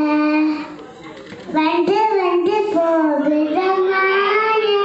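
A young girl singing solo into a microphone, holding long notes and sliding between them, with a short drop in level about a second in and a long steady note near the end.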